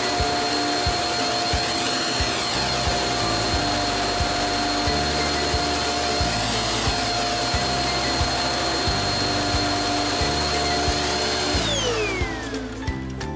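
Shark Rocket Powerhead stick vacuum running with a steady motor whine. It is switched off about 11.5 seconds in, and the whine falls in pitch as the motor spins down.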